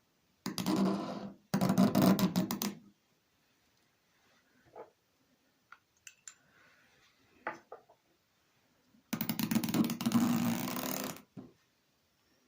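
A writing tool squeaking across a writing surface in three strokes: two of about a second each near the start, a longer one of about two seconds near the end, with faint taps between.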